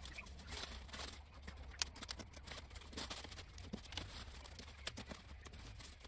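Irregular crisp snaps and rustles of rhubarb stalks and leaves being pulled and trimmed by hand, over a faint low rumble.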